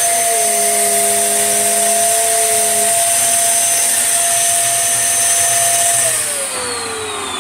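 Tesco own-brand 1800-watt bagless upright vacuum cleaner running with a steady high whine, then switched off about six seconds in, its motor winding down in falling pitch.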